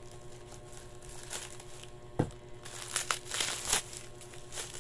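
Scissors cutting and hands pulling and crinkling honeycomb kraft-paper packaging wrap: scattered papery rustles, a sharp click about two seconds in, and louder bursts of crinkling a second later.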